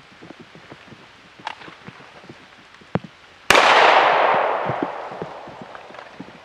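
A single pistol shot about three and a half seconds in, its echo dying away over about two seconds, with light rain pattering throughout.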